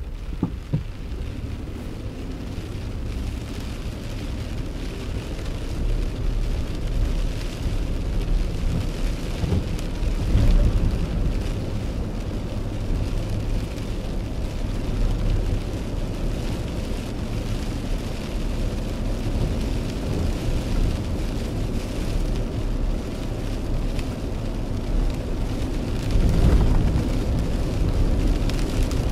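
Rain falling on a car's windshield and roof over a steady low rumble of the car driving on a wet road, heard from inside the cabin. The rumble swells briefly about ten seconds in and again near the end.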